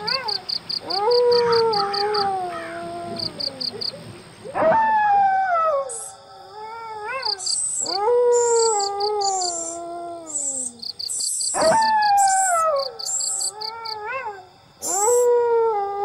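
A wild canid howling: about five long howls, each rising quickly and then sliding slowly down in pitch over two to three seconds, one every three seconds or so. Under them, insects chirp in rapid pulsed trains, with higher buzzing bursts joining about six seconds in.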